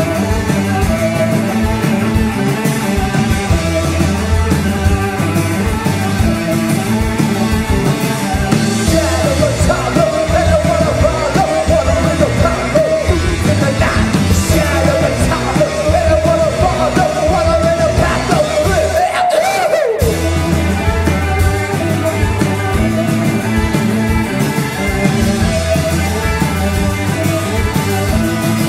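Rock band playing with electric guitars, bass, drums and singing. The music cuts out for a moment about twenty seconds in, then carries on.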